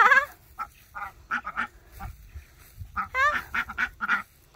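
Domestic ducks quacking: a run of short quacks, with a louder call right at the start and another burst of louder calls a little after three seconds in.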